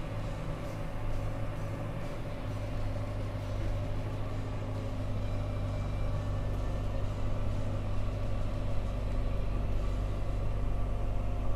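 Massey Ferguson MF6713 tractor's four-cylinder diesel engine running at a steady speed while the tractor works the field with its hand throttle set.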